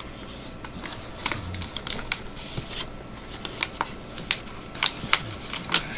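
A sheet of paper being handled, folded and creased by hand, giving a run of sharp crackles and rustles that grow louder and closer together in the second half.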